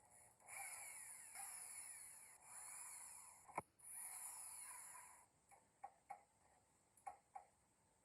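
Tool work on the amplifier: four rasping, scraping passes of about a second each, then a scattering of light clicks and taps.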